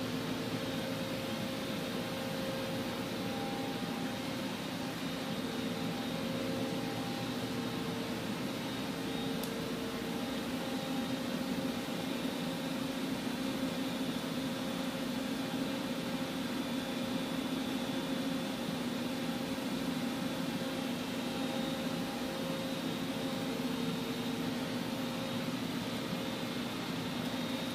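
Steady machine hum with a few faint steady tones from a powered-up Doosan Puma 480 XLM CNC lathe, not cutting.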